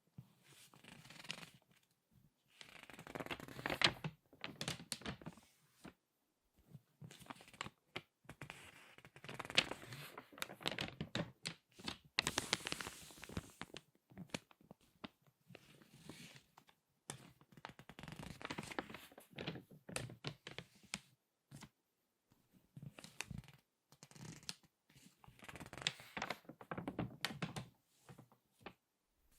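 Crinkly magazine pages being turned and squeezed in the hands, close to the microphone: bursts of paper crackling a second or two long with short pauses between.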